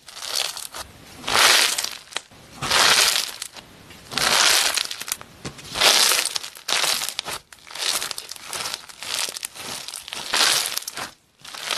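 Floam slime, clear slime packed with pink foam beads, squeezed and pressed between two hands. The beads crackle with each squeeze, in repeated bursts about every second and a half.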